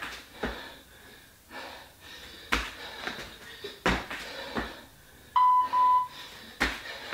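Hard, out-of-breath exhalations after a set of burpee tuck jumps, a few sharp puffs a second or more apart. Just over five seconds in, an interval timer beeps twice, marking the end of the rest period.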